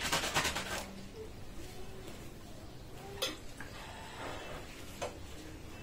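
Metal spoon clinking and scraping against a ceramic dinner plate while eating, a quick run of clinks in the first second, then a couple of single clinks.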